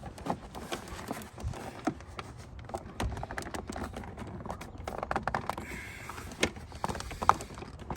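Irregular plastic clicks, knocks and rattles of a moulded plastic air intake duct being handled and fitted into place, with one sharper knock near the end.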